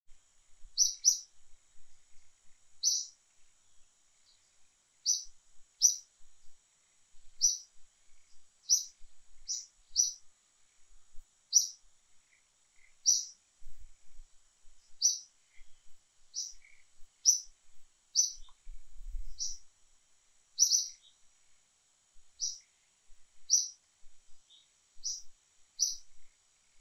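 A bird calling in short, high chirps, repeated roughly once a second, over a faint steady high-pitched whine.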